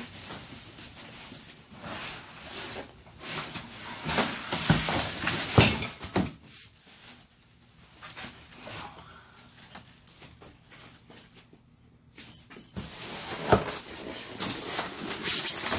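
Packing being handled while unboxing an exercise bike: rustling plastic wrap and cardboard and foam packing scraping and knocking. The noise comes in two spells with a quieter stretch between them, and a sharp knock comes shortly before the second spell builds.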